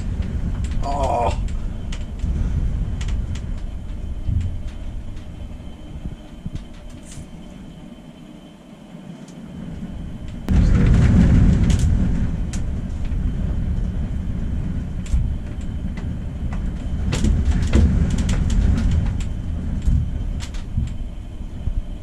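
Gusting wind heard as a low rumbling buffet that rises and falls, jumping up sharply about ten seconds in, with scattered faint clicks.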